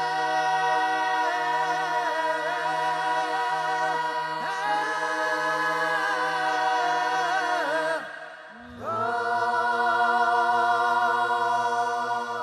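Soundtrack music of wordless singing: long held notes with a slight vibrato over a low steady drone. The singing breaks off briefly at about eight seconds, then a new phrase begins on a held note.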